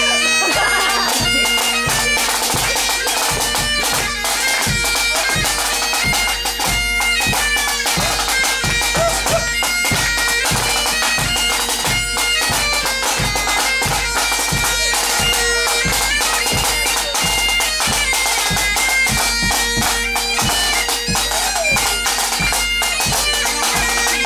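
Pipe band playing: bagpipes carry a tune over their steady drones, with drums beating a regular pulse of about two beats a second.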